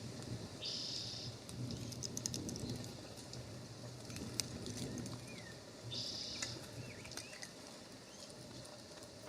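Outdoor bird ambience: faint scattered chirps, two short harsh buzzy calls about a second in and about six seconds in, and light scattered clicks, over a low steady hum.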